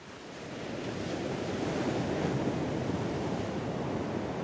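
Steady rushing room noise, fading in over the first second or two and then holding steady.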